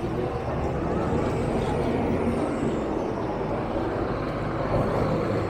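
City street traffic: engines and tyres of passing vehicles making a continuous, steady rumble, with a faint high whine rising and falling around the middle.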